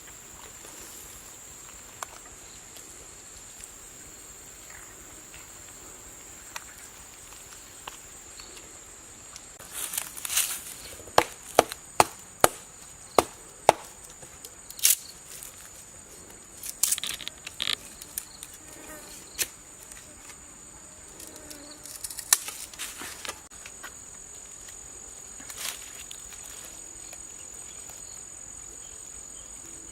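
Insects, likely crickets, chirring steadily at a high pitch. About a third of the way in, a run of sharp knocks and taps starts; it is loudest and most regular for a few seconds, then trails off into scattered knocks.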